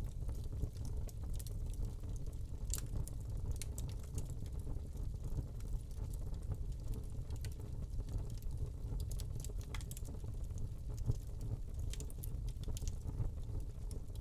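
Wood log fire burning in a fireplace: a steady low rumble of flame with scattered small crackles and pops.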